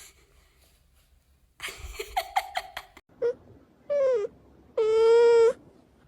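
Cat meowing: a short falling meow, then a longer held meow about a second long, the loudest sound, near the end.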